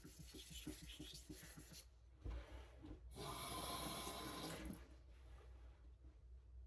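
A knife blade stroked quickly back and forth on a Kitayama finishing whetstone, a faint rhythmic rubbing of several strokes a second; the steel is very hard, about 64–65 HRC by the sharpener's reckoning, and feels glassy on the stone. Near the middle comes a separate steady hiss lasting about a second and a half.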